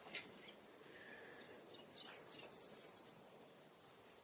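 Small songbird singing: scattered high chirps, then about two seconds in a fast run of about a dozen repeated high notes lasting about a second, before it falls quiet to faint marsh background.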